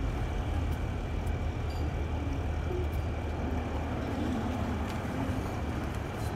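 Steady low mechanical drone with a faint, thin high whine over it, unchanging throughout.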